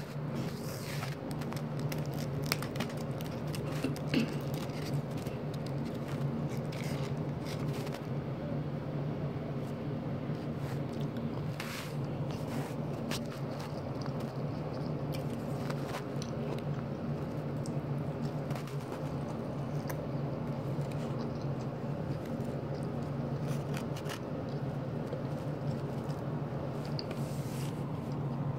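Steady low hum with scattered light clicks and handling noises.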